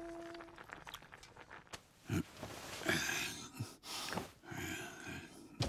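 A man's short low grunts and breathy sighs, a second or two apart, as he rummages.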